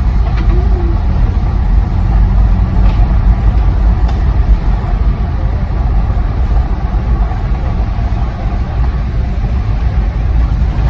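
A car driving, heard from inside the cabin: a steady, loud low rumble of engine and road noise.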